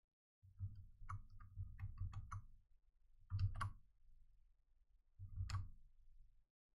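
Computer mouse and keyboard clicks with soft desk thumps: a quick run of clicks in the first couple of seconds, a pair past the middle, and a single one near the end.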